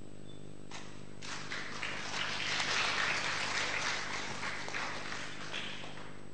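Audience applauding: clapping starts about a second in, builds to a peak midway and dies away near the end.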